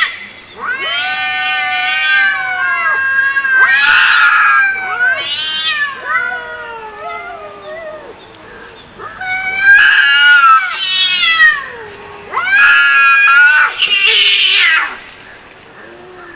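Two cats yowling at each other in a fight standoff: long, drawn-out, wavering caterwauls that rise and fall in pitch, coming in several spells with a brief lull about halfway through.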